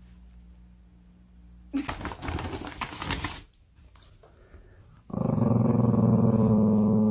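A dog growling: a rough, grumbling stretch lasting a second or two, then a long, loud, steady growl near the end.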